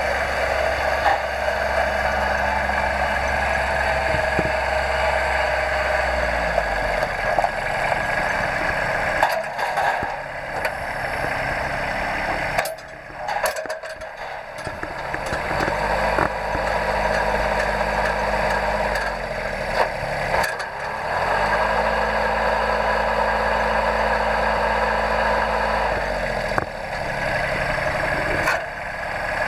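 The diesel engine of a Honda TX130 mini tractor running, with its engine speed changing several times and a short drop in level around the middle.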